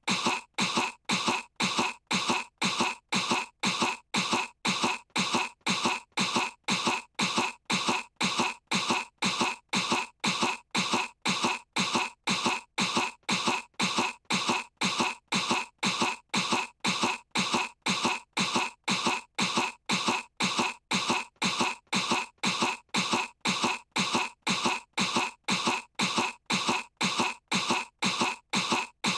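A young girl's voice forcing short fake coughs, repeated at an even rate of about two a second in an unchanging loop. The coughs are feigned, meant to sound sick.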